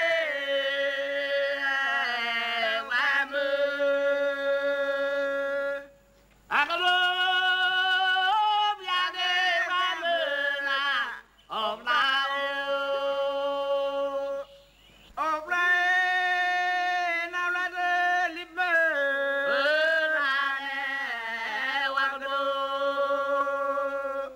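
Unaccompanied chanted singing: voices holding long, slightly wavering notes together in phrases of several seconds, with short breaks between phrases.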